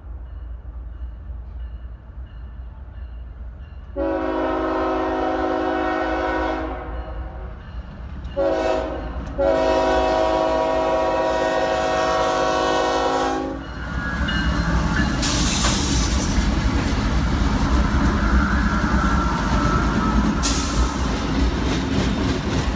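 A diesel freight locomotive's air horn sounding the grade-crossing signal: a long blast, a short blast, then a long blast of about four seconds. Then the locomotives pass close by, their diesel engines rumbling and their wheels clattering over the rail joints.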